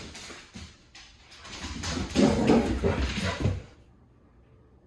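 Basset hound making low grumbling play noises during excited zoomies, a run of about two seconds starting a little under two seconds in.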